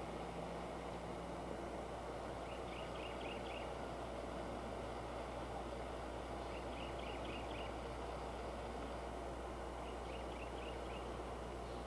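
A bird calling: short bursts of four or five quick high notes, repeated about every four seconds, over a steady background hiss and low hum.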